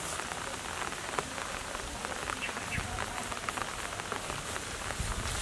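Light rain pattering steadily on leaves and grass, a continuous hiss dotted with small drip ticks.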